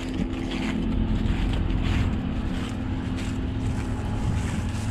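Claas Tocano combine harvester running while standing still: a steady engine hum that does not change.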